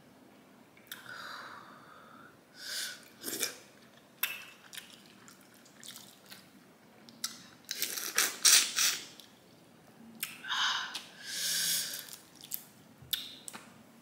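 Boiled crawfish being peeled and eaten by hand: wet squishing of the shells in sauce, sucking and slurping of the meat and juices, and chewing, in scattered short bursts. The loudest slurping comes about eight seconds in.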